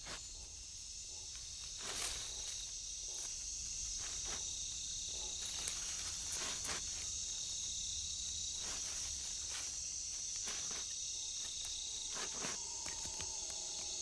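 Steady high-pitched chorus of night insects in a rainforest, with a few scattered soft ticks over it.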